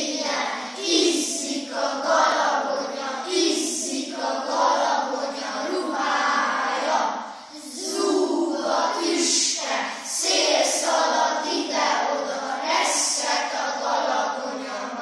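A group of young boys' voices chanting together in unison, in phrases with short breaks between them.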